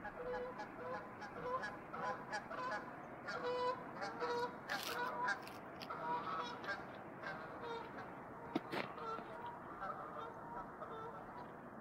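A flock of geese honking, many short overlapping calls that thin out in the second half, with one sharp click about three-quarters of the way through.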